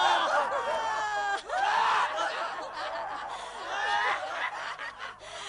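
A group of people laughing derisively, several voices at once.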